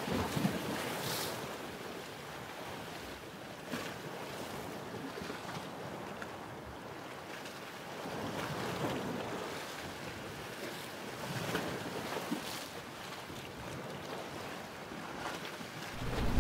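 Sea waves washing over a rocky shore, the surf swelling and falling back every few seconds.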